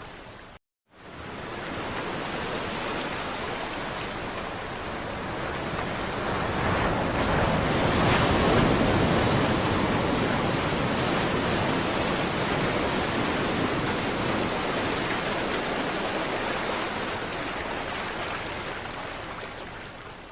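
Ocean surf washing ashore as a steady rush of water noise. It swells to its loudest about eight seconds in, then slowly ebbs and fades out near the end.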